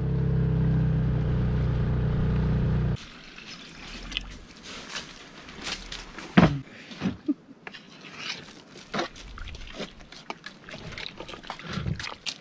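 Dinghy outboard motor running steadily, cut off abruptly about three seconds in. Then scattered short clicks and knocks, the loudest about six seconds in.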